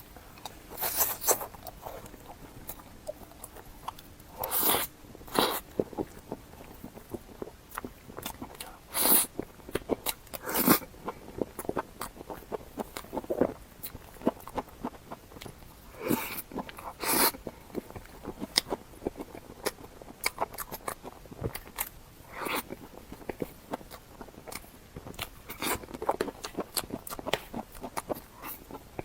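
Close-miked eating sounds of a small cake being bitten and chewed: irregular short mouth sounds, with a louder bite every few seconds.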